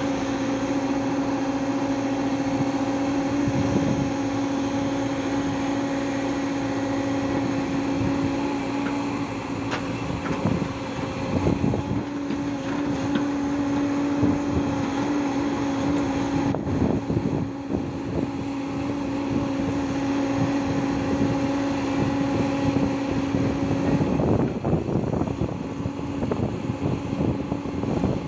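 Hyundai 140 crawler excavator working, its diesel engine and hydraulics running with a steady hum. A few times the sound turns rougher as loads of sand and rock drop into the tipper truck's steel body.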